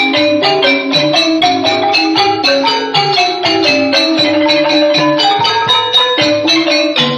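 Khmer pinpeat ensemble music: roneat xylophones and kong vong gong circles playing a quick, steady run of mallet-struck notes.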